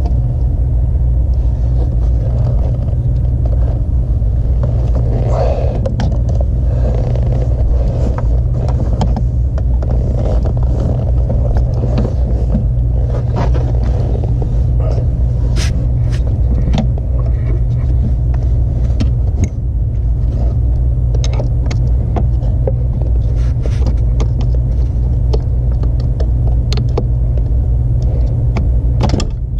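A steady low rumble lasts throughout, with scattered clicks and scrapes of hands working the throttle pedal's plastic electrical connector loose.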